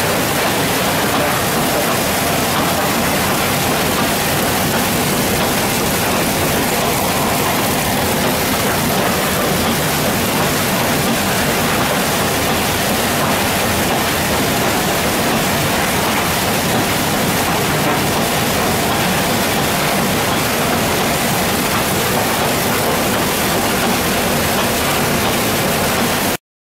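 Steady rush of water washing over a shaking table in a tin-sand separating plant, mixed with the even hum of the running machinery. It cuts off suddenly near the end.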